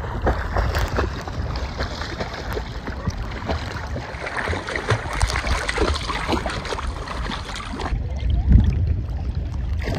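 Choppy seawater lapping and sloshing around a microphone held at the waterline, with small splashes, gurgles and a low rumble of water and wind buffeting the mic. The sound turns duller about eight seconds in.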